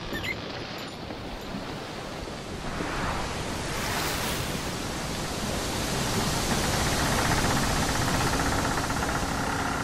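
Steady rushing noise that swells about three seconds in, with a steady mechanical hum coming in near the end.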